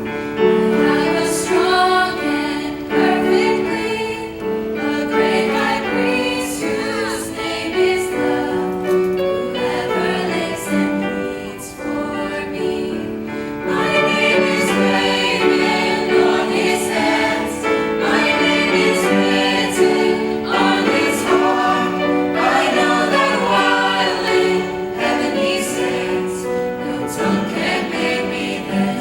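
Church choir singing a hymn in parts, the held notes sustained.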